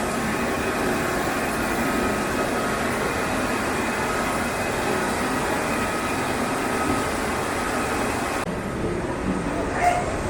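Tea-processing machinery running: a steady mechanical din with faint steady tones, which thins out in the highs near the end.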